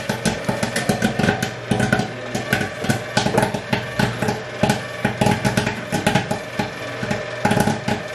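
Theater-style kettle popcorn machine popping corn in coconut oil: rapid, irregular pops over a steady low hum from the machine.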